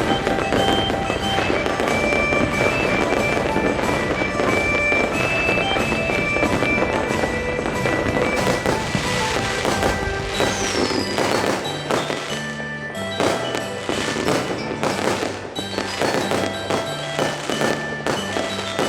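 Fireworks going off in a dense run of crackles and bangs, thinning to scattered bangs over the last several seconds, under background music.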